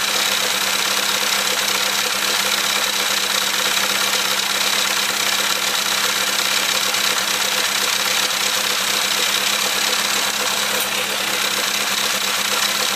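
Classic Mini 1380 A-series four-cylinder engine with a Piper 649 scatter camshaft running steadily on a test stand at a fast idle, running in the new camshaft.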